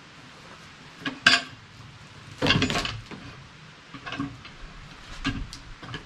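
A cant hook's steel hook clinking against an alder log as it is set and levered, with the log shifting and scraping between clinks. The sharpest clink comes about a second in, and a longer scrape follows about a second later.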